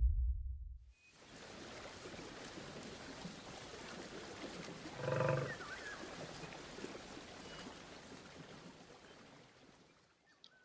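Faint stream and small waterfall running, with one short low dinosaur-character call about five seconds in. A deep rumble dies away in the first second.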